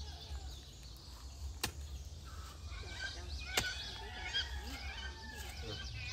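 A hoe chopping into dry garden soil, two sharp strikes about two seconds apart, with birds chirping in the background.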